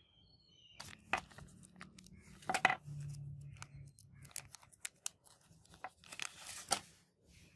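Small clear zip-lock plastic bag crinkling and rustling as hands open and handle it: a run of sharp crackles, loudest about two and a half seconds in and again near the end.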